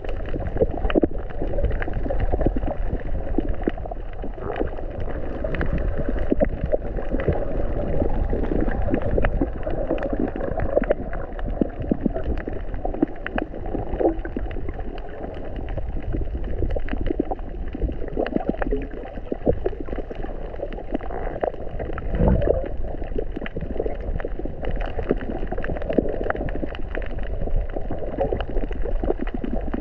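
Underwater sound picked up by a submerged camera: muffled water gurgling and sloshing, with a steady patter of small clicks and crackles. A louder low rush comes about three-quarters of the way through.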